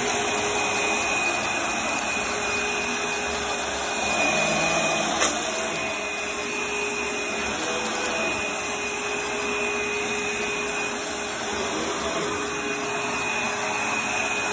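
Dirt Devil Breeze upright vacuum running on carpet, a steady motor whine over the suction noise as it picks up crunchy debris, with one sharp click about five seconds in.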